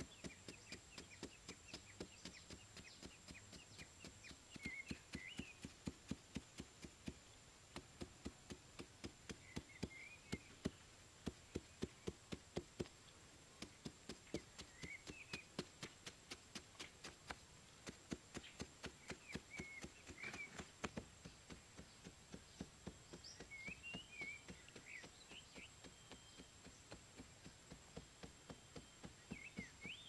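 Machete blade chopping into packed sandy soil: repeated dull strikes, about two to three a second, with brief pauses. A steady high insect drone and occasional bird chirps run underneath.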